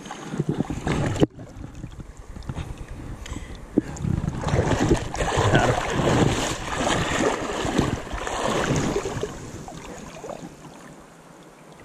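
Shallow river water sloshing and splashing around legs wading through it, with wind buffeting the microphone. The sound breaks off abruptly about a second in and is loudest in the middle.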